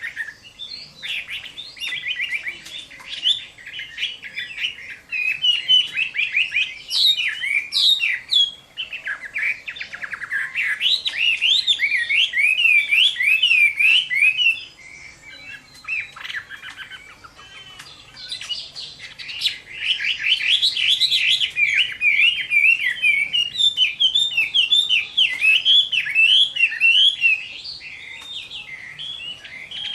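Chinese hwamei (họa mi) singing hard: a loud, fast, varied song of quick rising and falling notes. It drops to quieter phrases for a few seconds about halfway through, then resumes at full strength.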